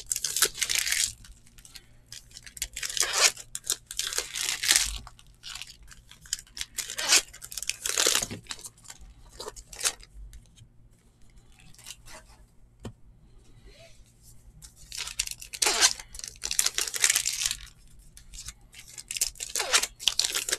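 Baseball card pack wrappers being torn open and crinkled, with cards being riffled and stacked, in irregular bursts with a quieter stretch about midway.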